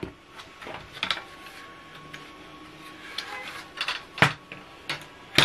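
Plastic five-fan laptop cooling pad being handled, giving scattered knocks and clicks, the loudest a sharp knock near the end. A faint steady hum of its fans, just switched on, runs underneath.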